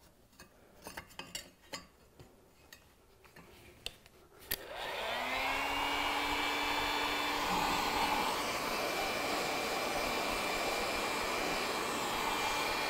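A few light taps and clicks, then about four and a half seconds in a small handheld heat gun is switched on: its motor rises briefly in pitch as it spins up, then it blows steadily. It is heating a heat-shrink hose clamp to shrink it tight onto the hose.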